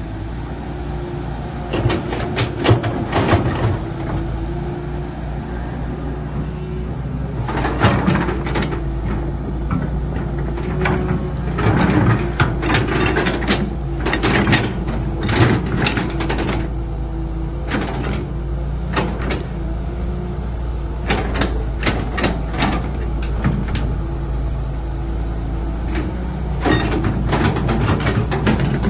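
Excavator at work: its diesel engine running steadily under many sharp metallic clanks and knocks, with a wavering whine.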